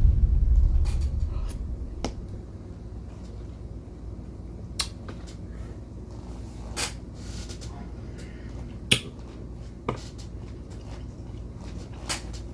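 A heavy low thump that fades away over the first couple of seconds, then a handful of sharp, separate clicks and taps spaced a second or more apart over a low steady hum.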